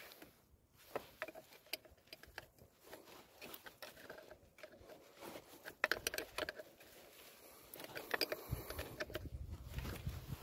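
Scattered light metallic clicks and taps as a hand handles a battery cable's ring terminal and the wiring on the tractor's engine. A low rumble comes in near the end.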